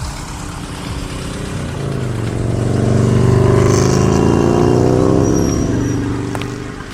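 A motor vehicle engine growing louder and rising in pitch from about two seconds in, loudest around the middle, then easing off slightly before it cuts out at the end.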